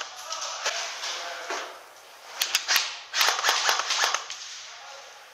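Airsoft replica firing: sharp, light cracks, a couple of single shots and then a quick string of shots in the middle.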